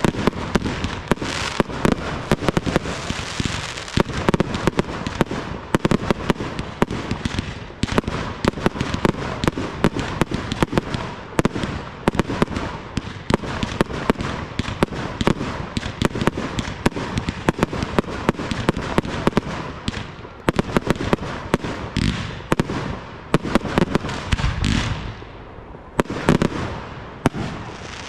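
Professional fireworks display: a dense, rapid succession of shell bursts and launch reports with crackle, thinning briefly near the end, where a few deep booms stand out.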